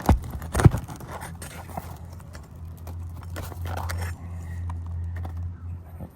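Scraping, knocking and crackling as brittle asphalt roof shingles are worked loose and their nails pried at, the shingles tearing. Sharp knocks come early, and a low steady hum joins in the middle.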